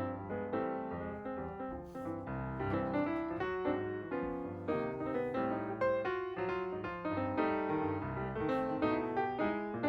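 Background piano music: a steady stream of short plucked-sounding keyboard notes.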